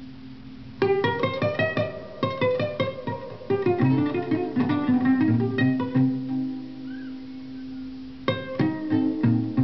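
Live instrumental music: quick runs of plucked string notes over a held low drone. The plucking starts about a second in, gives way to sustained notes past the middle, and picks up again near the end.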